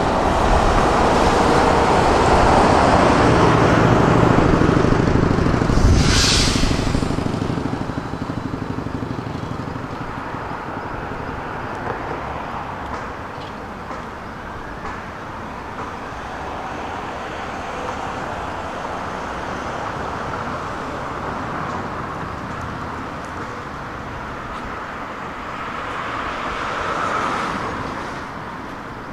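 Road traffic: a vehicle runs close by at first, with a short loud hiss about six seconds in, then a steadier, quieter traffic rumble that swells again as another vehicle passes near the end.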